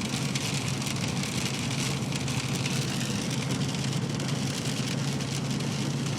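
Rain falling on a car's roof and windshield, heard from inside the cabin as a steady hiss with fine ticks of drops, over the car's steady low hum.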